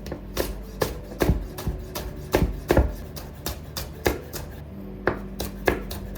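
Kitchen knife slicing spring onions on a cutting board: a run of sharp, uneven knocks on the board, about two a second.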